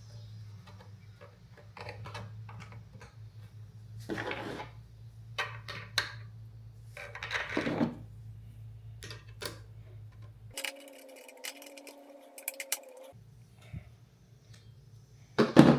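Scattered clicks, clinks and short scrapes of bolts, an aluminium bracket and hand tools being handled as a front-roller side bracket is bolted onto a reel mower, with a louder clatter near the end.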